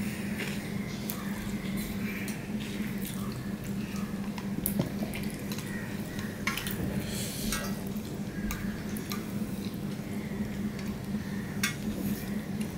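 Stainless steel bowl clinking against a steel plate as curry is tipped onto rice, with a few sharp metal clicks and the wet squish of rice being mixed by hand. A steady low hum runs underneath.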